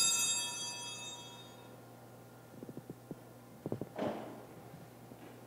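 Altar bells ringing at the elevation of the chalice, dying away over the first second and a half. A few soft knocks follow, the loudest a dull thump about four seconds in as the chalice is set back down on the altar.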